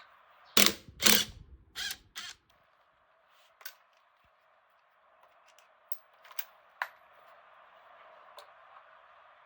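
Tools and engine parts knocking and clicking as they are handled during engine disassembly: two loud knocks about a second in, two more shortly after, then a few light scattered ticks over a steady hiss.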